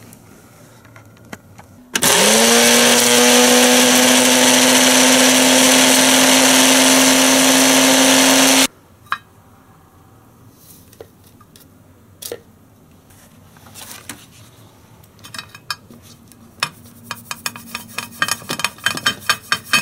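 Ninja blender motor spinning up quickly and running steadily for about seven seconds as it grinds de-husked mesquite pod pieces into flour, then cutting off. Afterwards come scattered light clicks and clinks, turning into a quick run of taps near the end.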